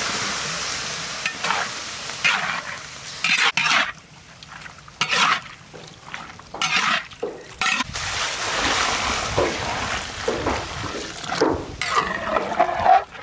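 Beef intestine sizzling in a large hot wok as liquid is poured over it. From a few seconds in, a metal spatula scrapes and stirs the pieces against the wok in separate strokes, over continued sizzling.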